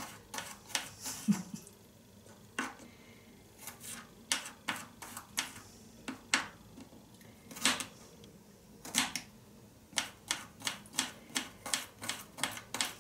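Small kitchen knife chopping garlic on a cutting board: irregular sharp taps, coming faster and more evenly, about three a second, near the end.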